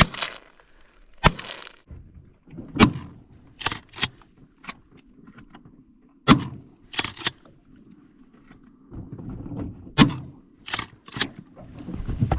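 A string of 12-gauge shotgun shots, about a dozen sharp reports at uneven intervals, some much louder than others.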